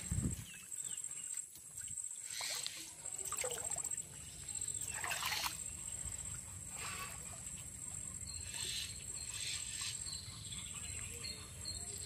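Shallow muddy water splashing and sloshing in irregular bursts as a man wades and pulls at the stakes holding a bamboo fish trap. A steady high whine runs underneath.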